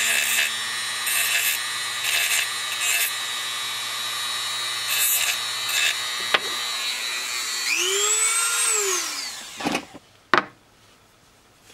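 Handheld rotary tool running with a steady whine, its small abrasive bit pressed in short grinding bursts against the end of a lithium-ion cell to grind off the welded connector tabs. About eight seconds in the whine rises briefly, then falls away as the tool is switched off and winds down, followed by two knocks as it is set down.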